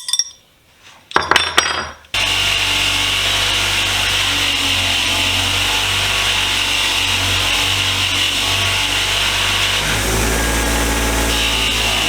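A few clicks, then a motor-driven wire wheel starts abruptly about two seconds in and runs steadily, scrubbing rust and grime off old steel pliers. Its sound shifts briefly near the end.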